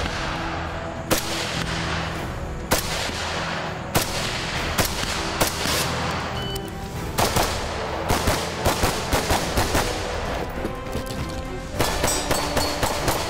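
Semi-automatic gunfire from a .223 AR-15-style rifle and a pistol. Single shots come a second or so apart in the first half, then fast strings of about three to four shots a second in the second half, over background music.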